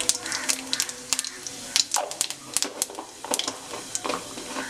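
Cumin seeds sizzling and crackling in hot oil in a wok, with sharp irregular pops several times a second.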